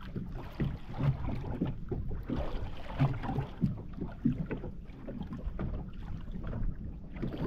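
Water slapping irregularly against the hull of a small boat, over a low rumble of wind on the microphone.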